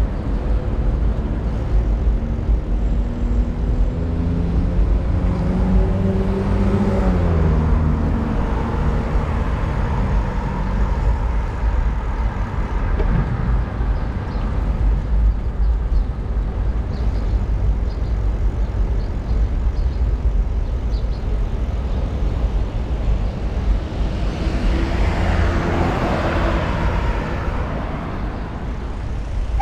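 Road traffic passing: a motor vehicle's engine goes by in the first several seconds, its pitch falling, and another vehicle swells past near the end, over a steady low rumble.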